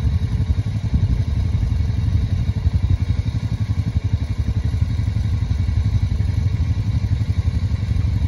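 ATV engine idling steadily, a low, even running sound with no break.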